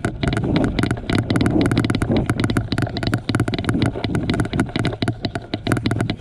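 Airsoft electric rifle firing a long, unbroken full-auto burst: a rapid, even rattle of shots, about a dozen or more a second, over the steady drone of its gearbox.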